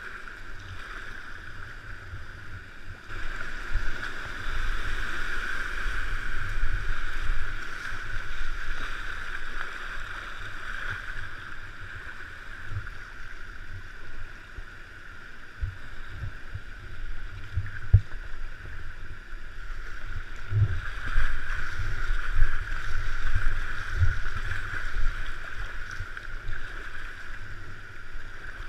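River water rushing over and below a small weir, heard from a kayak's deck as a steady churning hiss, with irregular low thumps as the kayak is paddled through the choppy outflow.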